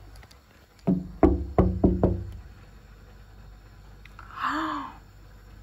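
A quick run of about five sharp knocks, each with a short ring, a second or so in. A brief voice sound follows near the end.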